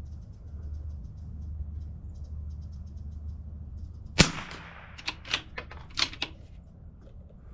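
A single shot from a CZ 457 bolt-action .22 LR rifle firing subsonic match ammunition, about four seconds in. It is followed within two seconds by four quick clicks as the bolt is worked to eject the case and chamber the next round.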